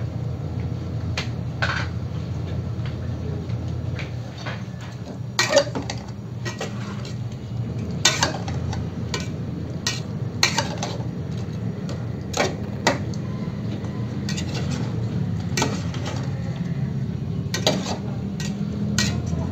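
A metal spoon stirring in a metal cooking pot, knocking and scraping against its sides with about a dozen sharp clinks at irregular intervals. A steady low hum runs underneath.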